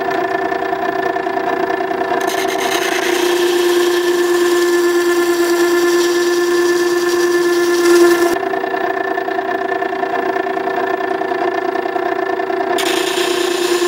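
Makita 9820 electric water stone sharpener running with a steady motor hum while a chisel is ground freehand on its coarse wheel. The gritty rasp of steel on the wet stone comes in about two seconds in, stops about six seconds later, and starts again near the end.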